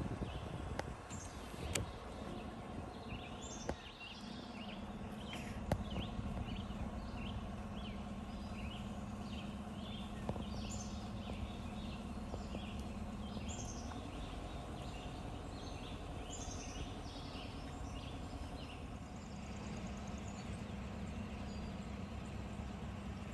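Many short, high bird chirps and peeps in quick, irregular succession over the steady low hum of an idling vehicle engine, which shifts slightly in pitch about halfway through.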